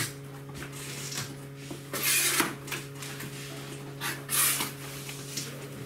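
Packaging being handled during a laptop unboxing: two short scraping, rustling bursts about two seconds apart, over a steady low hum.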